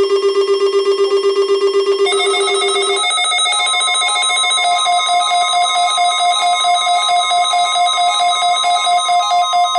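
Weather radio receivers' electronic alarms going off for the weekly NOAA Weather Radio test. A low beep pulses about five times a second and stops about three seconds in. From about two seconds in, a higher, alternating two-note beep overlaps it and then repeats steadily.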